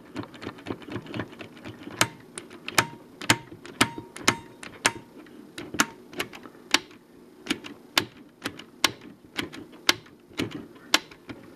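Pushbutton switch of a Fluke 8010A bench multimeter being pressed and released over and over, sharp clicks about two a second, louder from about two seconds in. The switch is being worked after a spray of DeoxIT contact cleaner, and still isn't switching properly.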